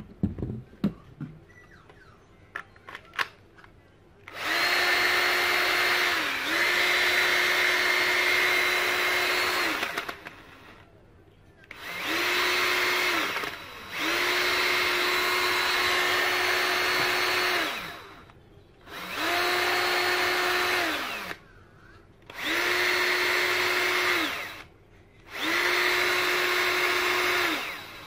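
Bosch 18V cordless drill's motor run with no load in about seven short trigger pulls, each winding up to a steady whine and winding down again when the trigger is released: a test run after the repair for motor sparking. A few clicks from handling the drill come before the first run.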